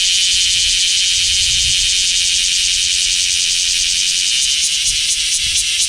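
Cicadas (semi) singing: a loud, continuous high-pitched buzz that, about four and a half seconds in, turns into a fast pulsing of roughly five pulses a second.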